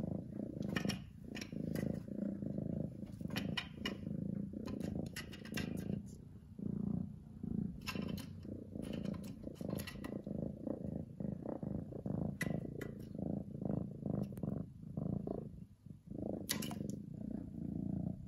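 Domestic orange tabby cat purring loudly and continuously at close range, with a low, pulsing rumble. Occasional short rustles and clicks come through over it.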